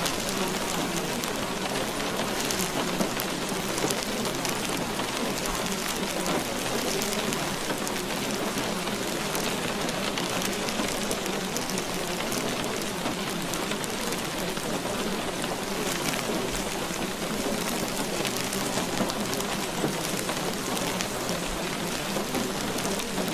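Steady rain: a dense, even patter of drops with no break or change.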